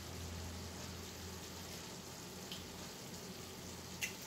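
Hot oil sizzling faintly and steadily in a small frying pan as eggs go in to fry, with a light tap about two and a half seconds in and a sharper crack near the end as an eggshell is broken.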